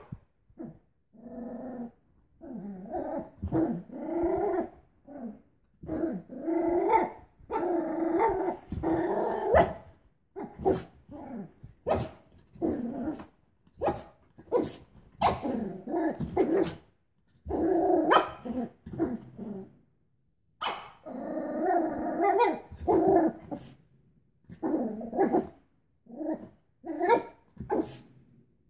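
Cavalier King Charles Spaniel puppy growling and barking in repeated short bouts at a spring doorstop, with sharp clicks now and then between the bouts.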